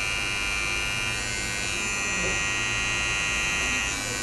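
Electric hair clippers buzzing steadily as their blade cuts a design into short hair.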